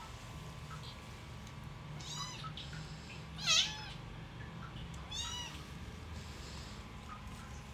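Young kittens mewing: three short high-pitched mews about a second and a half apart, the middle one the loudest.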